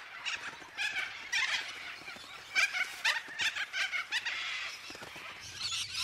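Parrots calling: a run of short, harsh squawks repeating every fraction of a second, thickening into a busier chorus near the end.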